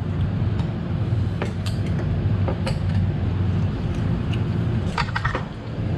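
A steady low hum fills the room, with scattered light clinks of a spoon and chopsticks against porcelain bowls and plates.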